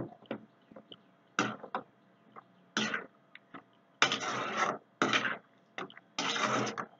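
Spatula stirring thick chicken gravy in a metal kadai, scraping against the pan in about five short strokes, mixing in the salt just added.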